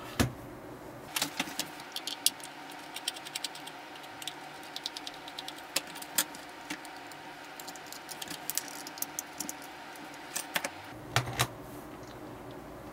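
Irregular small clicks and taps of plastic and metal parts as a rotary controller's housing is taken apart to get at its encoder, over a faint steady hum.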